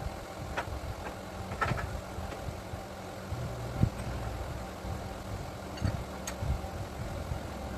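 A motor running steadily with a low hum, with a few scattered light clicks and knocks.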